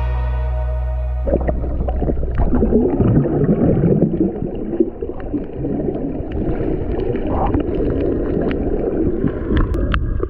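Muffled underwater water noise picked up by a submerged camera: churning, gurgling water movement with scattered small clicks. It starts about a second in, after a low held note of background music fades out.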